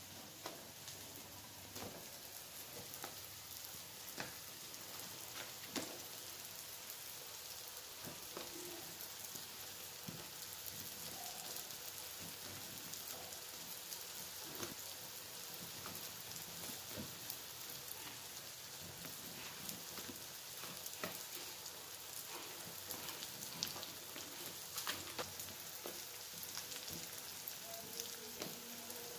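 Steady hiss with scattered small crackles and pops as papad is roasted over an open gas burner flame, with onions frying in a wok on the next burner.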